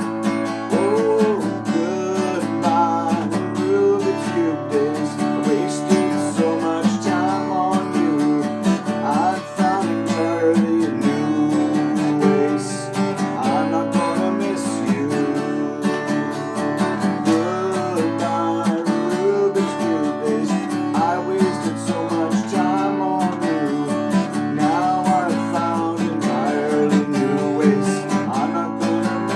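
Instrumental passage of a song: strummed acoustic guitar chords with a melody line moving over them.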